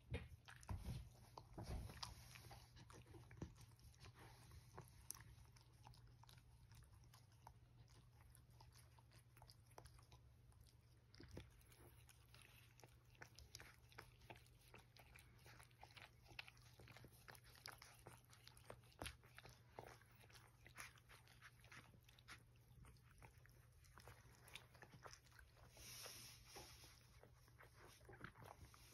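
Faint scattered clicks, snuffles and rustles from two-week-old dachshund puppies stirring as they sleep on a blanket, over a low steady hum.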